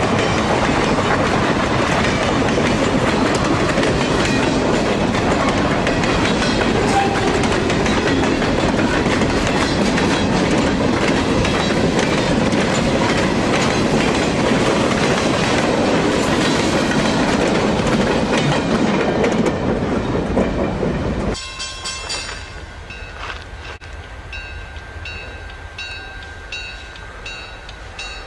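Freight cars rolling past at close range: a loud, steady rumble and clatter of steel wheels on the rails. About 21 seconds in, the sound cuts off abruptly to a much quieter background.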